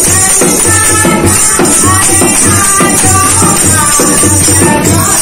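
Women singing a devotional bhajan to a dholak barrel drum beaten by hand in a steady folk rhythm, with hand-clapping in time.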